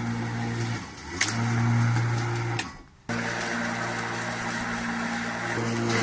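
Bosch cordless lawnmower's electric motor running with a steady hum. About a second in, it dips in pitch and spins back up with a click. Midway it cuts out for a moment, then runs on at the same speed.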